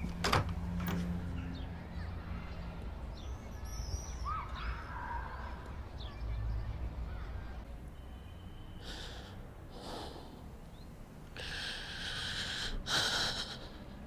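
A woman crying with her hands pressed over her mouth, muffled gasping sobs coming in breathy gusts, the longest and loudest shortly before the end, over a low steady hum.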